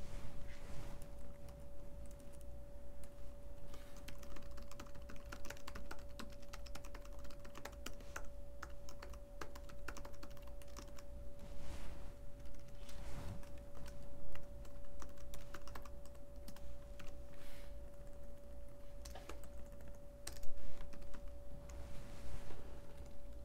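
Computer keyboard typing: irregular runs of keystrokes with short pauses between them.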